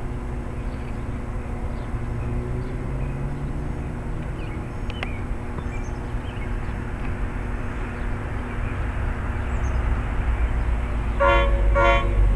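NJ Transit GP40PH-2B diesel locomotive approaching at the head of a commuter train, its engine and wheel rumble growing louder. Near the end it sounds two short horn blasts.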